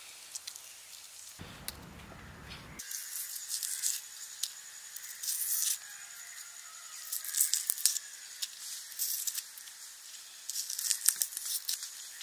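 Dry papery skins of small red onions crackling and tearing as they are peeled by hand against a large knife blade, in short bursts of crisp rustling.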